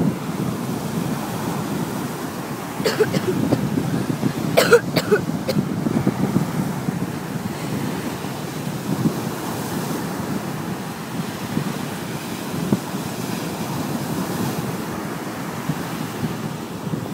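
Ocean surf breaking on the beach with wind buffeting the microphone, a steady low rush. A few short sharp sounds stand out about three to five seconds in.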